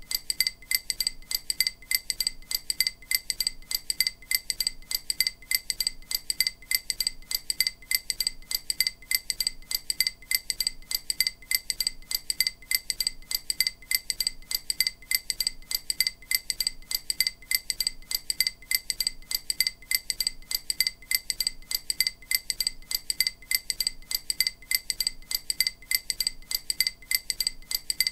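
EMDR bilateral-stimulation audio: short, bright, chime-like tones, each a clink with a brief ring, repeating at an even pace of a few per second without change. The tones alternate between the left and right sides to stimulate each half of the brain in turn.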